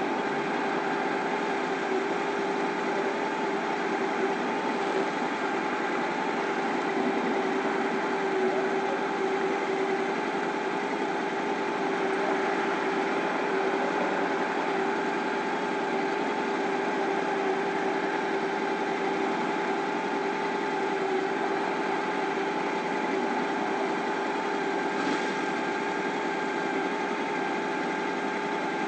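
Honda ST1100's V4 engine idling steadily while the motorcycle stands still.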